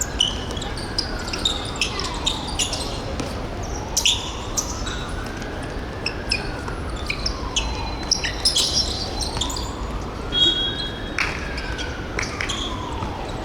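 Indoor ball-game sounds in a large hall: scattered sharp knocks of a korfball being passed, caught and bounced, and short high squeaks of shoes on the court. Under them a faint tone glides up and down about every four seconds.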